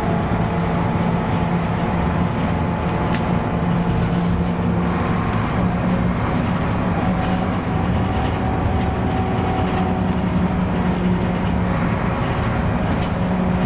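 2013 Scania K280UB bus, heard from inside the cabin while under way: its rear-mounted diesel engine runs at a steady note with road and tyre noise. There are occasional light rattles.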